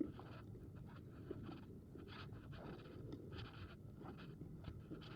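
Faint walking footsteps, a soft scuff about every half second or so, over the low rumble of a loaded gear wagon's wheels rolling on a paved trail.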